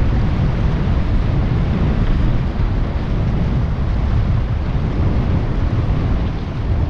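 Wind buffeting the microphone: a steady low rumble with a fainter hiss above it.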